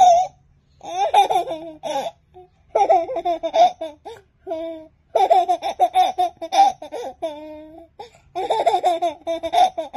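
A baby laughing hard in repeated bursts of belly laughter, about five rounds with short pauses between them.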